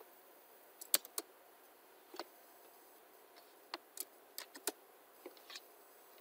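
A dozen or so sharp, irregular clicks of a computer keyboard, the loudest about a second in, over faint hiss. They are the keystrokes of a command to the Orca screen reader, which does not take it.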